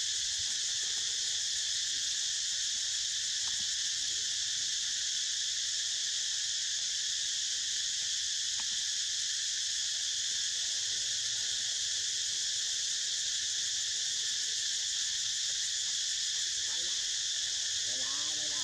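Steady high-pitched insect chorus, a continuous buzzing trill that neither rises nor falls.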